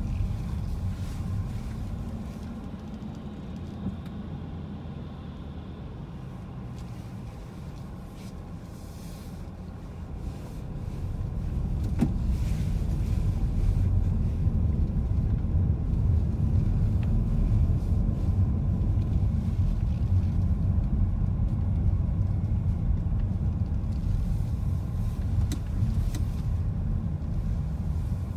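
Car driving: a steady low rumble of engine and road noise. It is quieter at first and grows louder from about ten seconds in.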